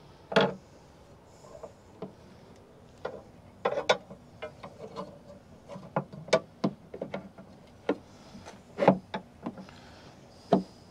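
Irregular clicks and light knocks as the folding tailgate table's frame is handled and fitted against the inner panel of a Ford Bronco's rear swing gate.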